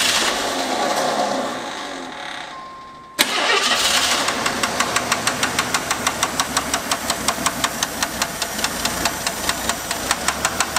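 AMC Eagle engine turning over and fading for about three seconds; then, after a sudden change, it is running with a loud, rapid, even knock about five times a second. The owner called it huge rod knock, though he later doubts it is bottom-end noise because it seems too rapid.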